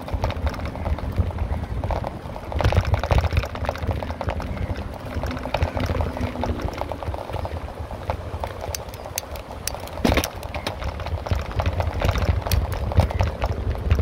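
Wind rumbling on the microphone of a moving bicycle, with a running patter of rattles and clicks from the bike over the path and a sharper knock about ten seconds in.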